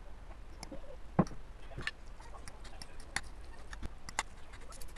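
Metal forks clicking and scraping against a ceramic plate as instant noodles are tossed with their seasoning: irregular light clicks, a few sharper ones.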